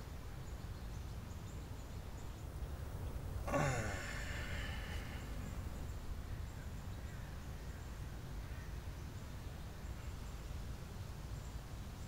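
A man's single sigh, falling in pitch, about three and a half seconds in, over a steady low background rumble.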